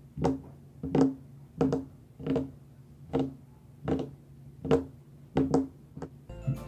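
Hand taps, about ten of them, roughly one every three-quarters of a second with a few doubled, each leaving a short low ring. Music starts near the end.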